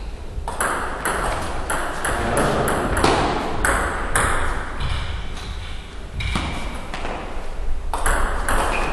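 Table tennis ball being struck by the bats and bouncing on the table during rallies: a quick run of sharp clicks, a few each second, thinning out around the middle before picking up again.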